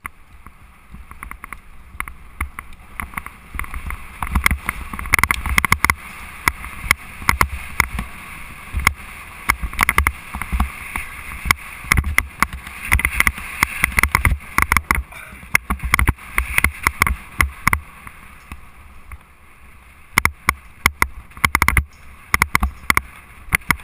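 Mountain bike rolling fast over a bumpy dirt trail, with wind rumble and a dense, irregular run of knocks and rattles as the bike jolts over the ground.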